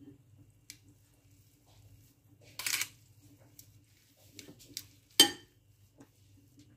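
Metal kitchen tongs handling wet rice noodles in a ceramic bowl: scattered soft clicks and a short rustle a little under three seconds in. About five seconds in comes a single sharp clink of metal on the bowl, the loudest sound. A faint steady low hum runs underneath.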